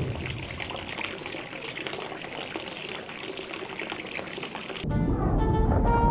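Water running hard from a chrome faucet into a stainless steel sink basin, a steady rush of water. About five seconds in it cuts off suddenly and cheerful cartoon music takes over.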